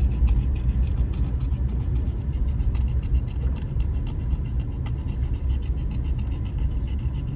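Car driving slowly, heard from inside the cabin: a steady low rumble of engine and road noise.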